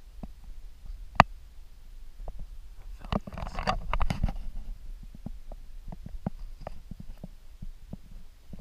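Scattered short clicks and knocks over a low rumble, with one sharp click about a second in and a cluster of louder knocks and rustling around three to four seconds in.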